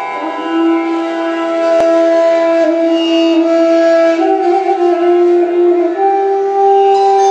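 Music for a dance performance: a melody of long held notes that step up and down in pitch.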